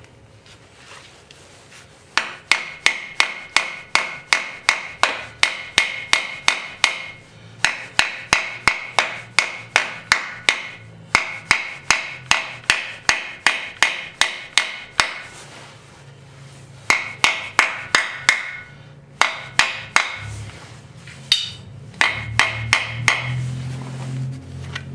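Hammer blows driving new freeze plugs into a Chevy 396 big-block engine block. They come as steady runs of sharp metallic strikes, about three a second, and each strike rings. Short pauses fall between the runs.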